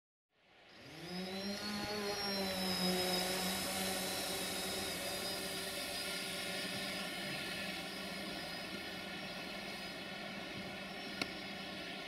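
Quadcopter drone's propellers humming steadily under a hiss, the pitch rising in the first second or two and then holding steady. A single sharp click sounds near the end.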